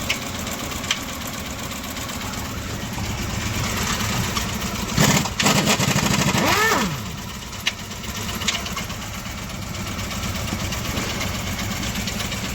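Honda City petrol engine idling with a repeated 'tak tak tak' knock from inside the engine, taken for a damaged piston and block. A brief louder noise with a short falling whine cuts in about five seconds in.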